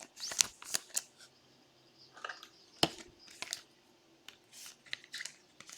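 Trading cards being handled: soft sliding and brushing of cards with scattered light taps, and one sharper click about three seconds in.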